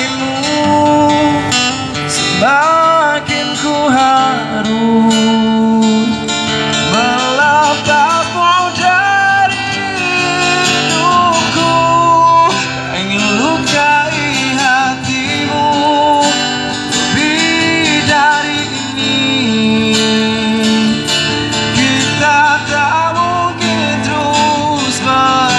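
Acoustic guitar strummed as accompaniment while a man sings a slow Indonesian pop ballad into a microphone, played through a loudspeaker.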